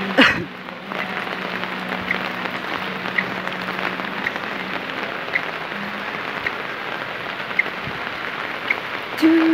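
Heavy rain falling steadily on a concrete street and rooftops, an even hiss. A sharp knock comes right at the start, and a steady humming tone begins just before the end.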